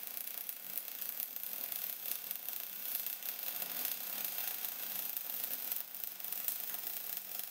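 MIG welding arc from an Everlast Cyclone 262 welder laying a continuous bead, crackling steadily with no break.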